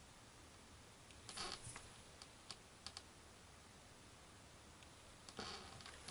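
Near silence broken by a brief close rustle about a second in, a few faint light clicks, and another rustle near the end: someone shifting and handling gear.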